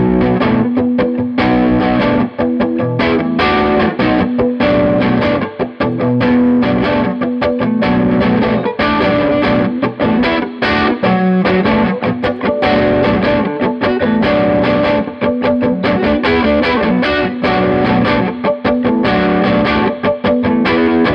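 Electric guitar played through a Fender Champ 12 tube amp on its overdriven dirty channel, turned up: continuous distorted picking and chords with quick attacks.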